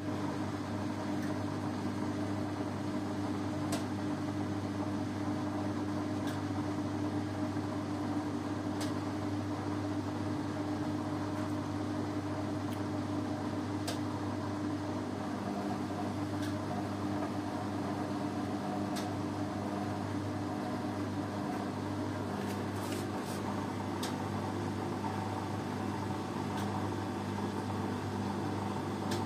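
Beko front-loading washing machine running a cotton wash: a steady motor hum as the drum turns the laundry, with faint clicks about every five seconds. Partway through, the note of the hum changes.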